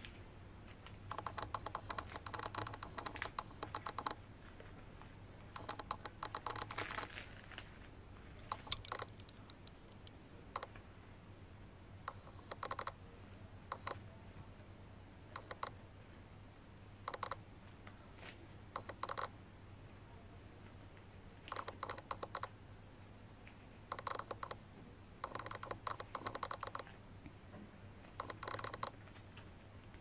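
Camera lens autofocus motor ticking in about a dozen short bursts of rapid clicks as it hunts for focus, over a faint steady hum. A brief scratchy rustle comes about seven seconds in.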